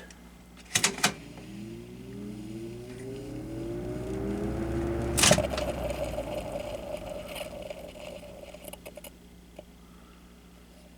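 Lasko 3733 20-inch box fan, its motor freshly cleaned and oiled, starting up on low speed: the switch clicks on about a second in, then the motor hum rises steadily in pitch as the blades spin up over about four seconds. Near the middle comes another sharp click, after which the hum holds its pitch and slowly fades.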